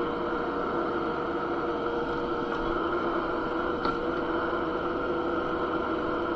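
Kubota SCL1000 stand-on compact skid steer running steadily, its engine making an even drone with a few constant tones and one faint tick about four seconds in.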